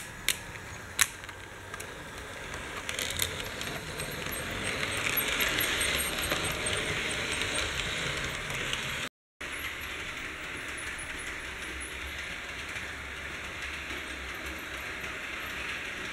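Model train running on the layout track: its wheels click and rattle over the rails, with a few sharp clicks near the start. The rolling noise swells to its loudest in the middle, breaks off briefly about nine seconds in, then runs on steadier and quieter.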